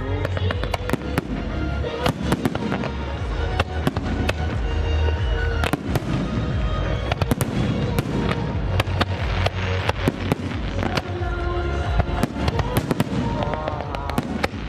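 Fireworks display: a rapid, irregular string of sharp bangs and crackles from bursting shells and ground-launched comets over a continuous low rumble. Music plays underneath.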